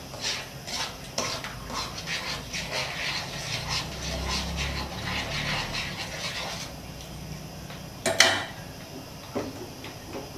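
A spoon stirring melting palm-sugar syrup in a nonstick wok, scraping and clicking against the pan in quick strokes for about six seconds, then stopping. A sharp knock follows about eight seconds in.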